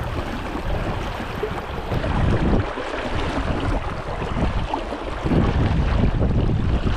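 Running water of a salmon brook rushing steadily, with wind buffeting the microphone in uneven gusts that grow stronger from about five seconds in.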